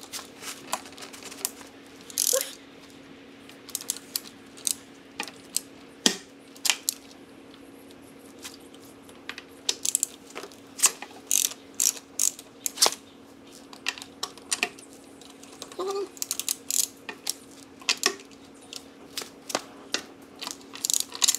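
Hand ratchet wrench clicking in short, irregular runs as car lug nuts are loosened, with a few sharper metallic clacks of the socket and tool.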